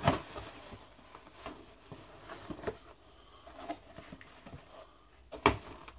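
Cardboard box flaps and crumpled brown kraft packing paper rustling and crinkling as the box is pulled open and handled. There is a sharp knock right at the start and a louder one about five and a half seconds in.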